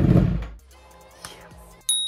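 Kawasaki ZX-9R sport bike's inline-four engine running through an SC Project exhaust, fading out about half a second in. Quiet music follows, with a sudden bright ringing sting near the end.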